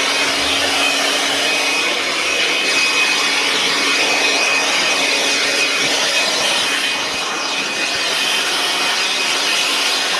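Small leaf blower running steadily at full blast, a constant rush of air with a steady high whine, blowing hay dust off clothes and machinery.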